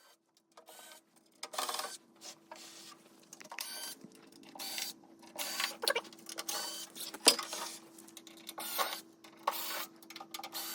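Power screwdriver whirring in short, irregular bursts as it backs out screws, over a faint steady hum.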